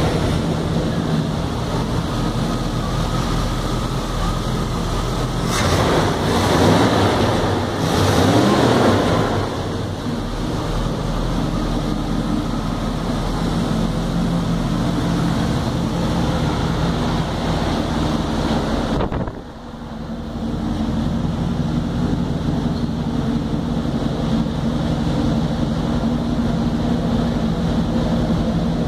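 1992 Chevrolet 1500 pickup's 4.3-litre V6 idling steadily, with a louder rushing noise for a few seconds about six seconds in.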